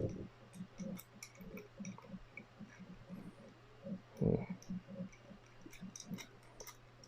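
Number wheels of a Master Lock Excell four-digit combination padlock being turned by hand, a long irregular run of faint clicks as the dials are scrambled. One duller, louder knock comes about four seconds in.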